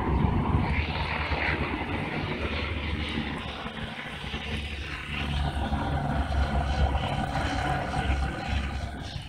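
Distant airliner engine noise: a steady low rumble with a hiss above it.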